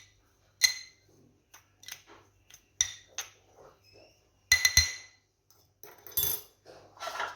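Spoon clinking and scraping against a bowl while lemon zest is stirred into a mixture: a string of separate sharp clinks with a brief ring, with the loudest near the start, about three seconds in, and a quick pair around four and a half seconds.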